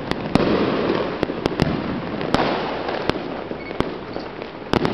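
Fireworks going off: irregular sharp bangs from bursting aerial shells, several in quick succession near the end, over a steady din of more fireworks.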